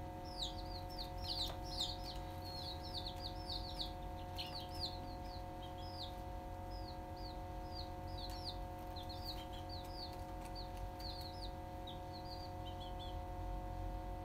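A brood of young chicks peeping: a steady stream of short, high, falling peeps, busiest in the first half and thinning out later. A steady low hum runs underneath.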